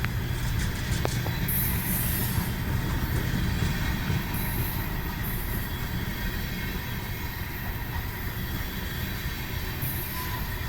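Freight train rolling past: a steady low rumble of the train, with short bursts of high-pitched wheel squeal now and then.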